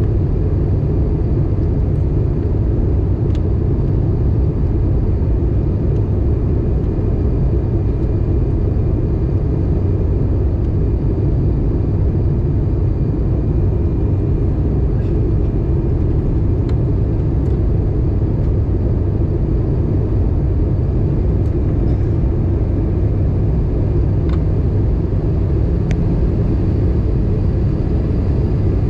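Airbus A320 cabin noise during descent: a steady low rumble from the engines and rushing air, heard inside the passenger cabin.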